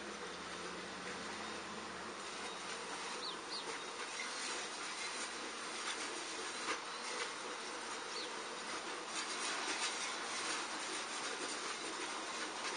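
Steady outdoor background hiss, with a few faint, brief high chirps about three seconds in and again near eight seconds.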